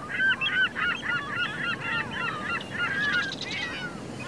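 A flock of shore birds calling together, many short, quickly bending calls overlapping one another over a steady low background rush.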